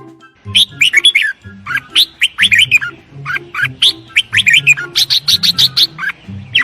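Red-whiskered bulbul calling: quick, short chirping and warbled notes in several bursts, starting about half a second in.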